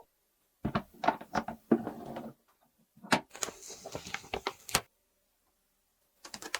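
Light clicks, taps and knocks of small plastic toy pieces being handled, in two quick clusters, then a pause and a few more clicks near the end.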